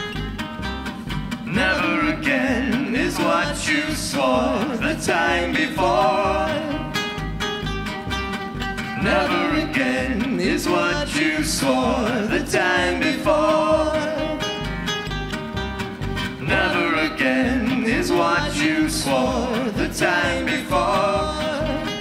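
Live gypsy jazz band playing: acoustic guitars and a plucked upright double bass keep a steady swing beat, with a melody line coming in repeated phrases over it.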